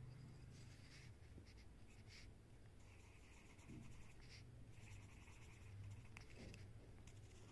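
Pencil scratching faintly on paper in short separate strokes while drawing small circles.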